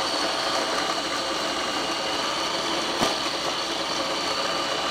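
Small electric food processor running steadily, blending a thick banana mixture with sliced almonds, its motor giving an even whine. A single sharp knock about three seconds in.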